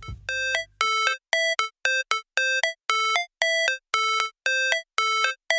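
Background music: a bright electronic melody of short, clipped notes that switch between two low pitches, with silence between the notes.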